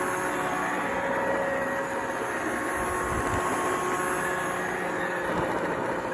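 iRobot Roomba 670 robot vacuum running over a rug, a steady motor whir with a few steady tones in it, played backwards.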